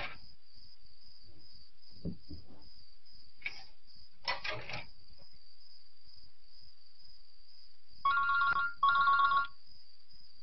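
A mobile phone's ringtone, a two-tone ring in two short bursts back to back near the end. Before it, a few soft knocks and rustles of someone moving about.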